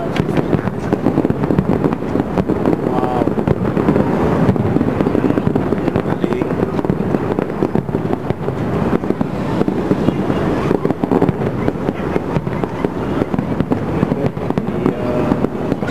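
Aerial fireworks shells bursting one after another without pause: a dense, continuous rattle of pops and booms.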